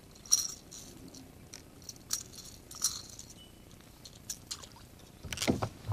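Pliers clicking and scraping against a crankbait's treble hooks as the lure is worked free of a largemouth bass's mouth: a scatter of short, sharp clicks, with a louder knock near the end.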